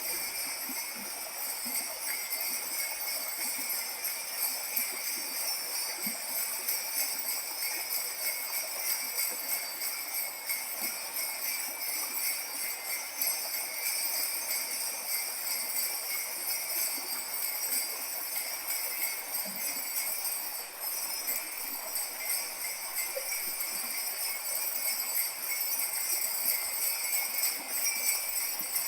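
Kaskawillas, Mapuche bronze bells, shaken in a continuous dense jingling that imitates the rush of a waterfall, growing a little louder near the end.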